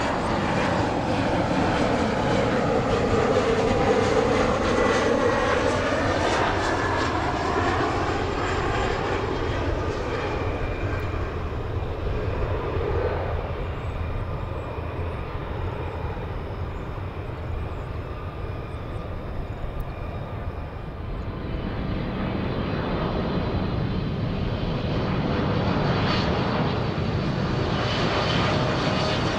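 Jet airliner engines passing close by, their whine falling in pitch over the first several seconds over a low rumble. The rumble eases off mid-way and builds again near the end.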